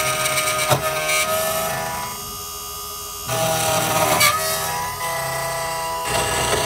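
SEC-E9 automatic key machine cutting a Honda H003 key blade, its spindle motor and end-mill cutter running with a steady whine. The whine drops for about a second near the middle as the cutter's load changes, then comes back, with a couple of sharp clicks.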